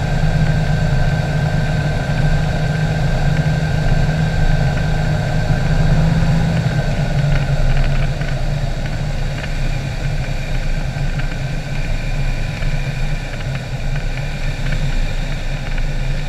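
Cessna 182's six-cylinder piston engine and propeller running at low power, throttled back for landing, heard inside the cabin. The steady engine hum drops slightly in pitch about six seconds in, as the plane crosses the threshold and settles onto the runway.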